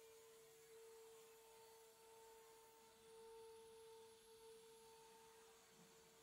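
Faint, steady whine of a 3.5 kW CNC router spindle running as a V-bit cuts MDF: one unchanging tone with a weaker higher overtone above it.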